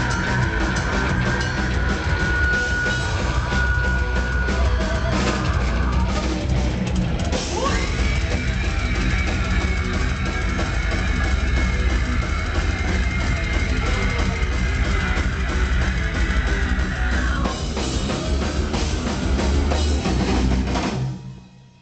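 A metal band playing live and loud, with distorted electric guitars and a pounding drum kit. A long high note rises in at about seven seconds and is held until about seventeen. The music cuts off just before the end.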